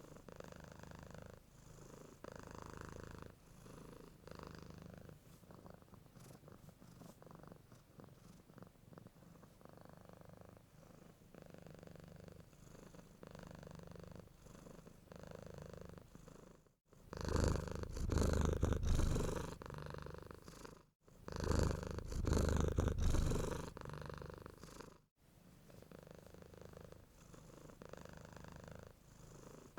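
Domestic cat purring close to the microphone in soft, pulsing waves. Through a stretch in the second half the purr is much louder, broken by brief sudden dropouts where the recording is spliced.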